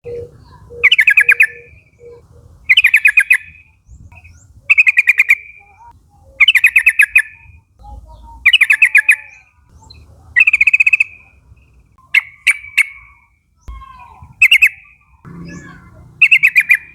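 Yellow-vented bulbul calling: a short bubbling phrase of rapid notes, repeated about every two seconds.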